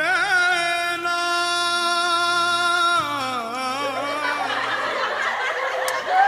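A woman's voice holding one long, wavering sung note for about three seconds, then sliding down in pitch and trailing off; after that comes a busier, noisier stretch.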